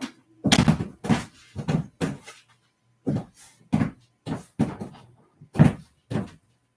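A series of about eleven loud knocks and bangs in a small room, irregularly spaced, like cupboard doors or objects being handled and set down.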